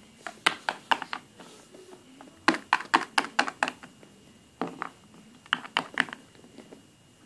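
Small plastic Littlest Pet Shop figurines tapped and hopped against a hardwood floor, making several quick runs of sharp clicks.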